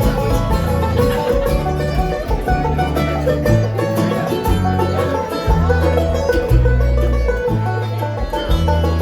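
Bluegrass band playing an instrumental break between verses: fast banjo picking over guitar, with a bass line that steps to a new note about every half second.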